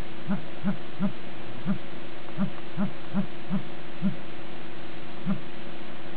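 Short low-pitched feedback pulses from a touchscreen dual-SIM phone, one with each stylus tap on its on-screen keyboard. There are about eleven in quick, uneven succession, bunched at first and thinning out toward the end, over a steady low hum.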